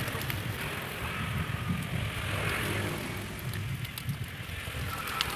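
Steady low rumble of outdoor street background noise, with a few faint clicks near the end.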